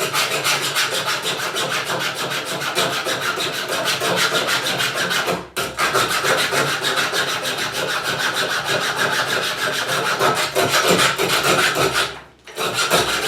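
Hand metal saw with a dull blade rasping through the thin steel wire of a cheap bike lock's cable held under tension, in rapid back-and-forth strokes. The sawing breaks off briefly about five and a half seconds in, then resumes and stops about twelve seconds in.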